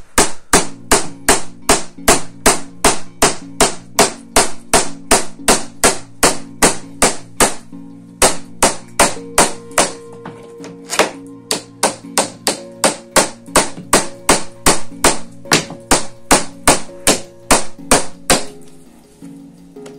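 Small hammer tapping on a wooden door casing, with steady light strikes about two to three a second that thin out briefly about eight seconds in and stop shortly before the end. Background music runs underneath.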